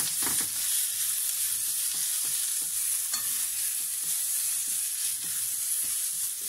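Sliced red onions sizzling in a little hot oil in a non-stick frying pan, with a slotted plastic spatula scraping and clicking against the pan as they are stirred.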